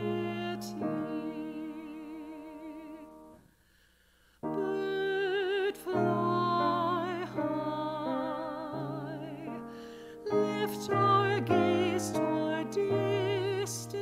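Slow, gentle music: a melody held on long notes with vibrato over a soft accompaniment. It breaks off into a short silence about three and a half seconds in, then starts again.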